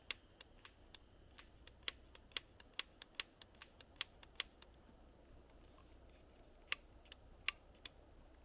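A series of short, sharp, irregular clicks: a quick run over the first four or so seconds, then a few more near the end.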